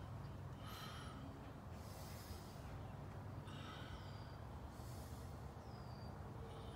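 A person breathing close to the microphone, four short breaths about a second apart, over a faint low steady hum.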